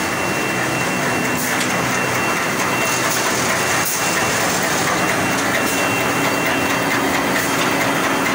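Automatic 5-ply corrugated board pasting machine running: a steady, dense mechanical clatter of its rollers and drives, with a thin high whine that comes and goes.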